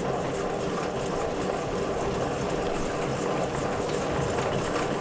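A machine running steadily, an even mechanical noise with a low rumble and a constant hum.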